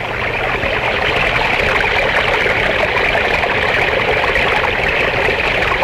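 Water falling and trickling steadily, a small spring spilling down over rocks and plants.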